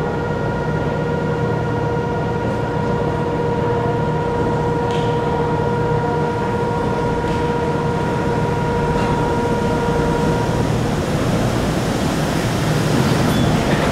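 Chiba Urban Monorail suspended train approaching and pulling into the station, a steady rumble growing louder near the end as the car comes alongside. A steady high tone sounds over it and stops about ten seconds in.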